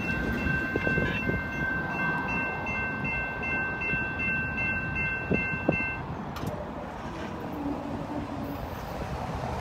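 Railroad crossing warning bell ringing rapidly, cutting off about six seconds in: the train has cleared the crossing and the gates are going up. Under it, the low rumble of a double-stack intermodal freight train moving away, fading.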